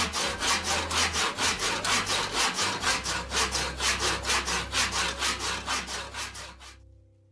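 Handsaw cutting through a eucalyptus slab offcut with quick, even back-and-forth strokes, about four a second, dying away shortly before the end.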